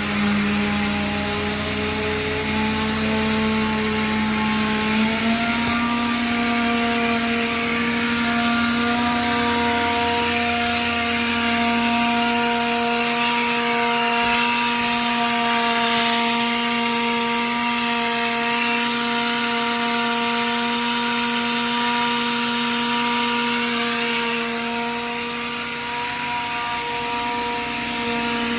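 Portable in-situ crankshaft grinding machine running, with a steady motor whine that steps up a little in pitch about five seconds in. A grinding hiss joins it from about ten seconds in.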